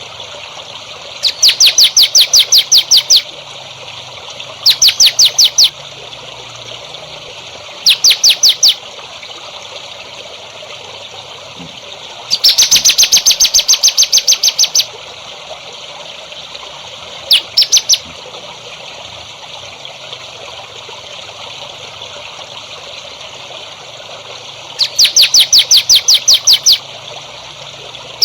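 A songbird calling in six bursts of fast, evenly repeated sharp notes, the longest about halfway through, over a steady trickle of running water.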